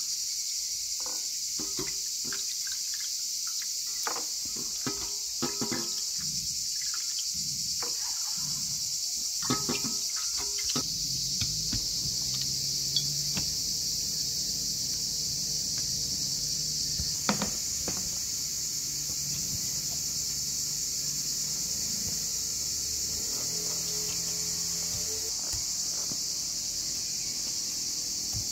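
Insects chirring in a steady, unbroken high-pitched drone. Light knocks and taps come from the raw chicken pieces being handled during the first ten seconds or so.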